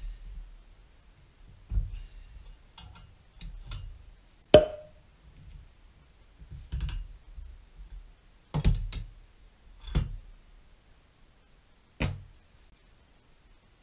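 Scattered knocks and clanks of a steel three-jaw gear puller and driveshaft centre-bearing parts being handled on a wooden workbench, about eight in all. The loudest is a sharp metallic clank with a brief ring about four and a half seconds in.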